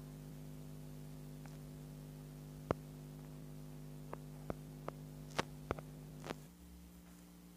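Steady low electrical hum with a cluster of about seven sharp taps in the middle, fingertips tapping a phone's touchscreen. The hum shifts pitch near the end.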